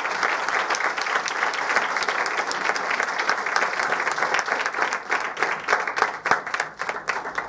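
Audience applauding. The dense clapping thins out to scattered separate claps in the last couple of seconds and is dying away at the end.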